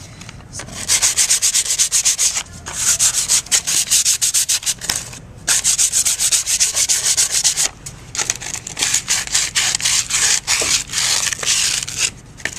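Hand sanding a beetle-kill pine block with 150-grit sandpaper: quick back-and-forth scratchy rubbing strokes over the edges and around the drilled hole, in several runs broken by short pauses.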